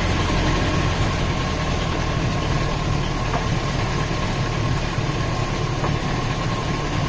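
Jeep engine running steadily.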